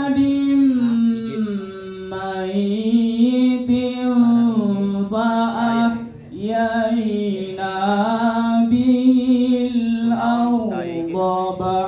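A man reciting the Qur'an in melodic tilawah style into a microphone, drawing out long, ornamented notes that waver up and down, with short breaks for breath about six seconds in and near the end.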